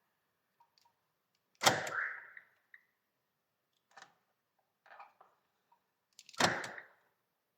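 Two sharp clunks from a Mitsubishi Outlander XL, about five seconds apart, with a few light clicks between them, as the car is shut and locked to arm the alarm.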